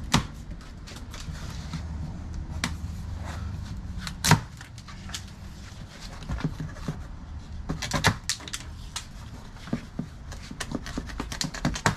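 A large cardboard bike box being cut open with a knife and handled: sharp knocks and clicks with scraping between them, the loudest knock about four seconds in and a quick run of clicks from about eight seconds on. A low steady hum sits underneath.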